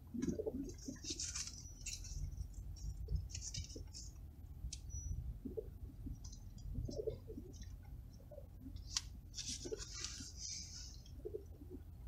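Racing pigeons cooing inside the car, a string of short low coos every second or so, over the car's low steady engine hum.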